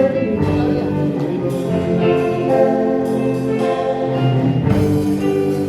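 Instrumental music: several instruments playing held notes together, moving from chord to chord every second or so.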